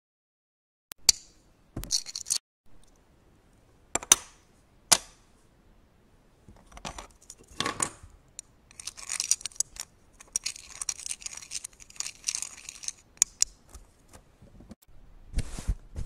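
Plastic LEGO bricks being handled and snapped together. First come a few sharp separate clicks, then several seconds of bricks rattling and rubbing against each other, then a few more clicks.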